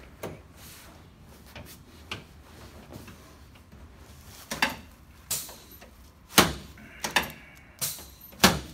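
Faint shuffling and rustling as a patient turns over on a chiropractic treatment table. From about halfway through comes a string of sharp knocks and clacks, roughly one or two a second.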